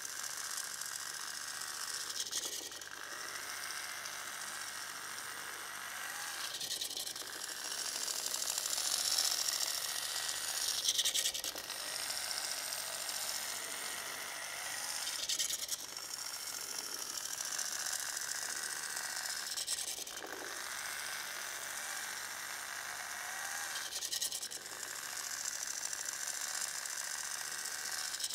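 Hobby servo motors of a pan-and-tilt tracker mount whirring through their gears as they drive the mount, the whir breaking off briefly about every four seconds.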